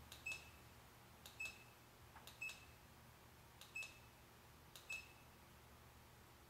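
Remote control of an RGB LED light kit pressed five times, about a second apart, each press a faint click with a short high beep, as the light colour is changed.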